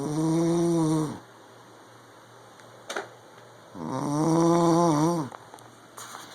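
A sleeping man snoring: two long, pitched snores about four seconds apart, with a brief click between them.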